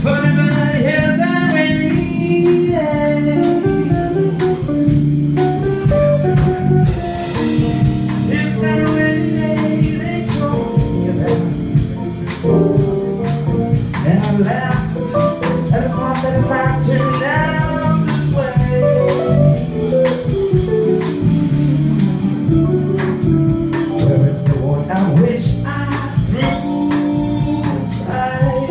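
Live jazz band playing: a male vocalist singing over electric guitar, bass, keyboard and a drum kit's cymbals.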